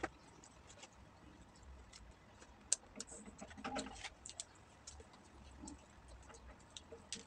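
Faint eating sounds: scattered soft clicks and crunches as fried chicken is chewed and torn apart by hand.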